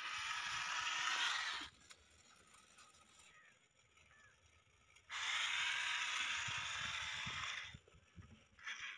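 Small electric motor whirring in bursts of a couple of seconds each, switched on and off abruptly, twice, with a short third burst near the end.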